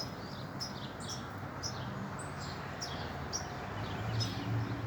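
Birds chirping in short, falling notes about twice a second, over a low bumblebee buzz that grows louder near the end as a bee comes close.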